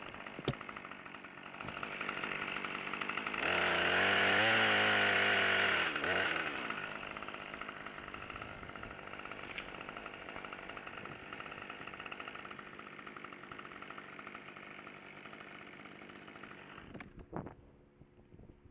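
Husqvarna T540 XP top-handle two-stroke chainsaw running, revved up loud for a couple of seconds a few seconds in, then running quieter before cutting off near the end.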